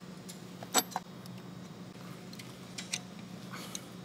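Scattered light metallic clinks and clicks of a wrench on a steel pipe plug as it is tightened into a cast-iron cylinder head, the sharpest clink just under a second in, over a steady low hum.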